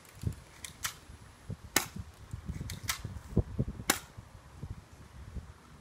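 Walther PPQ spring airsoft pistol firing BBs, several sharp snapping shots about a second apart, with duller low knocks between them.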